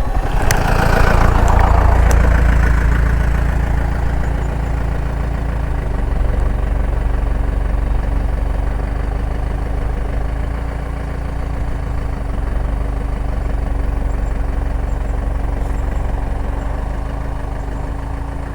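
Yamaha MT-15's single-cylinder engine running steadily at low revs, a little louder over the first couple of seconds.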